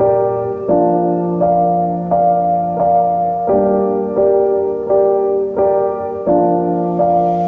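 Background music: slow, gentle piano or electric piano chords, a new chord about every three-quarters of a second.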